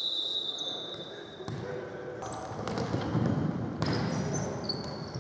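Referee's whistle blowing one long, steady blast for the kick-off, ending about a second and a half in. Then futsal play on a wooden indoor court: the ball being kicked and bouncing, and trainers squeaking briefly on the floor.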